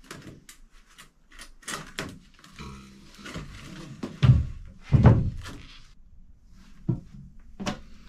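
Braided plastic hose being dragged and fed under wooden floorboards, rubbing and knocking against the framing, with two heavy thumps a little over four and five seconds in.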